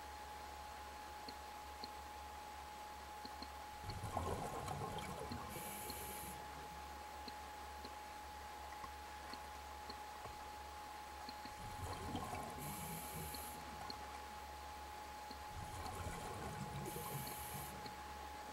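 A scuba diver's regulator heard underwater: three exhalations of bubbling, each followed by a short high hiss of inhaled air, about every four to eight seconds. A faint steady whine sits under them.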